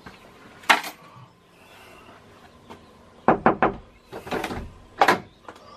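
A handful of sharp knocks and thumps on wood: one about a second in, a quick run of several about three seconds in, then a few more near the end.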